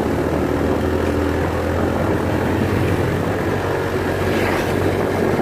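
Motorcycle engine running steadily as the bike is ridden, a constant low drone mixed with wind and road noise.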